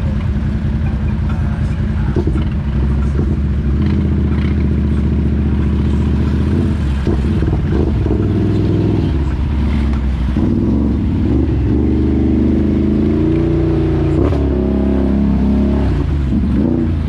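ATV engine running under way, fairly steady at first. From about ten seconds in it rises and falls in pitch again and again as the throttle is opened and eased.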